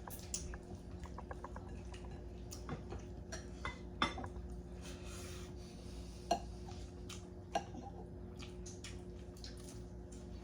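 Scattered light clinks and knocks of hard objects being handled, a few louder ones about four, six and seven and a half seconds in, over a steady low hum.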